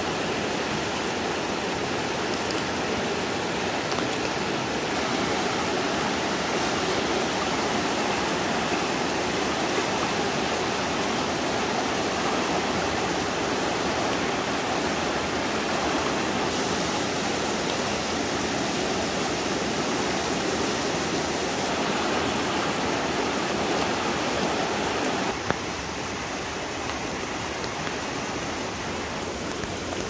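A rain-swollen mountain river running high and fast in whitewater over its rocky bed, a steady rushing of water, dropping slightly in level about 25 seconds in.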